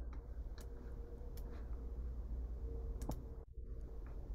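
A handful of faint clicks, scattered and sparse, over a low steady hum of room tone picked up through a video-call microphone.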